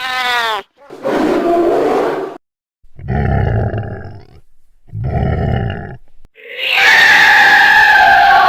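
Four short cartoon monster roar sound effects in a row, the first a pitched call falling in pitch, the rest rough growling roars. About six and a half seconds in, sustained choir-like music starts.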